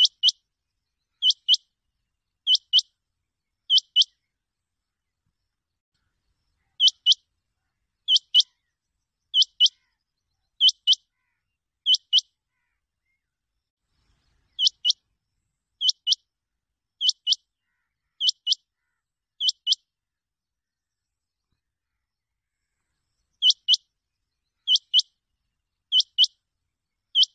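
Rain quail calling: a sharp, high doubled note repeated about every 1.3 seconds, in runs of four or five with pauses of two to three seconds between runs.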